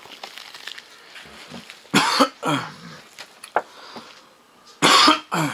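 A man coughing hard in two short fits, one about two seconds in and another near the end.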